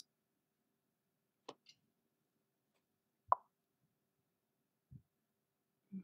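A few scattered short pops and clicks over a quiet room, the loudest a sharp pop about three seconds in, followed by two soft low thumps near the end.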